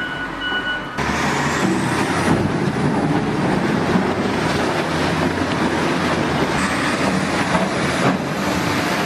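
Heavy machinery engine running under loud, steady noise that comes in abruptly about a second in.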